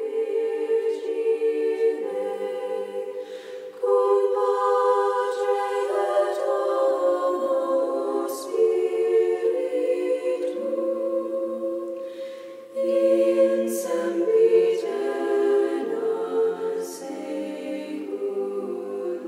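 A choir singing a cappella in slow, held chords that change every couple of seconds.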